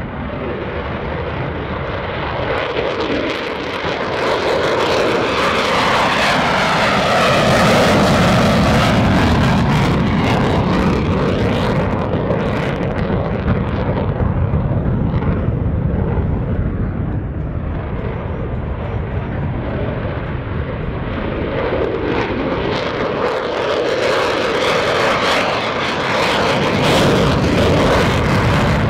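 Lockheed Martin F-35A Lightning II's Pratt & Whitney F135 turbofan in full afterburner on takeoff and climb-out: loud, continuous jet noise. It swells with a sweeping tone as the jet passes, eases off, and swells again near the end.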